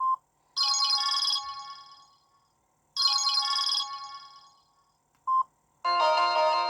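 Samsung SGH-E500 mobile phone playing a short chiming alert tone twice, each chime starting sharply and fading out over about a second and a half. A short beep comes at the start and another just after five seconds, and a longer melodic ringtone begins near the end.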